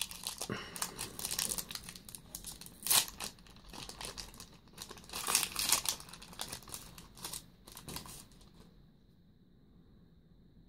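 Foil booster-pack wrapper crinkling and tearing as a trading-card pack is opened and handled, in irregular crackly bursts. It dies away about two-thirds of the way through, leaving only a faint, steady high-pitched whine.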